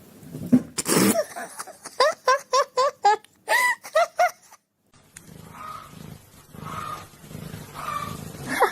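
A cat calling: a loud cry about a second in, then a quick run of about nine short calls that rise in pitch. After a break, fainter calls repeat about once a second.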